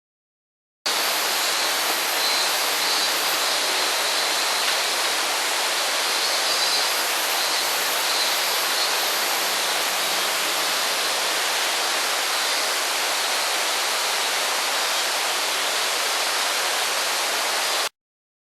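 Steady rush of a waterfall pouring into a mountain gorge, with a faint high wavering tone running through it. It starts abruptly about a second in and cuts off abruptly near the end.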